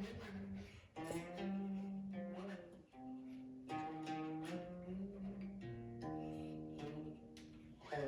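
Song-dynasty guqin played solo: single plucked notes and small clusters left to ring and fade, a few notes wavering and sliding in pitch under the left hand, with fresh plucks about a second in, around three seconds in and near the end.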